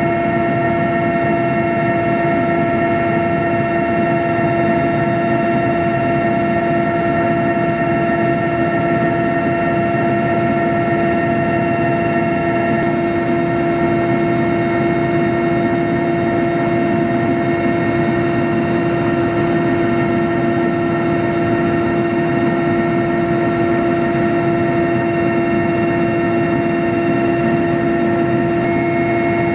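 Aircraft in flight: a steady engine drone with a constant whine over it, unchanging throughout.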